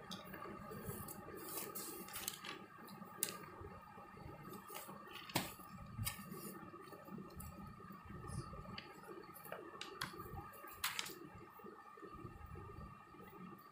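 Faint, irregular clicks and soft rubbing of thin metal knitting needles and wool yarn as stitches are worked by hand, over a faint steady hum.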